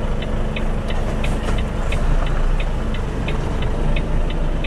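Truck cab interior: the diesel engine runs at low revs while the turn-signal indicator ticks steadily, about three ticks a second.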